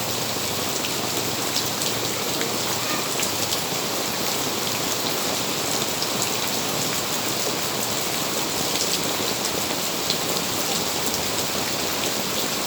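Rain falling steadily, a dense even hiss with many small drop ticks.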